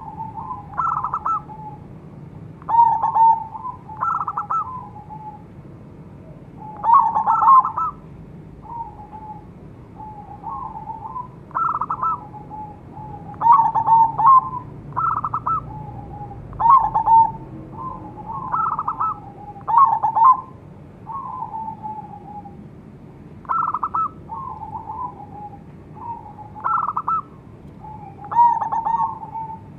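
Zebra dove (perkutut) cooing: a string of short, fast-warbled coo phrases, each about a second long, repeated every one to three seconds.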